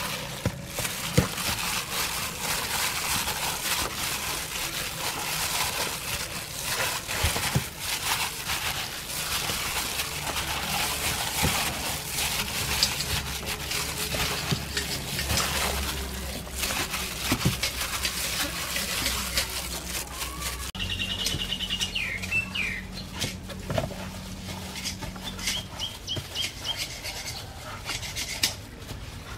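Plastic-gloved hands kneading marinade into a whole raw chicken in a stainless steel bowl: wet squelching and crinkling of the glove, with a few sharp knocks against the bowl. Birds chirp a few times in the last third.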